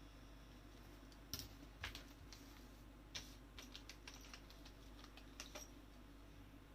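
Scattered small clicks and taps, about a dozen in uneven succession, the sharpest ones about a second and a half and two seconds in: electronic components and a circuit board being handled on the bench.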